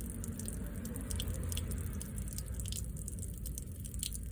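Water dripping and splattering in irregular drops over a low steady hum: rainwater trapped inside a 2019 Toyota RAV4's back door, a fault the owner treats as a defect.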